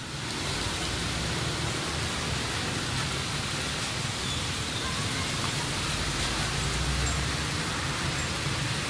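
Steady hiss of rain over a low rumble of cars and motorcycles passing on a wet road.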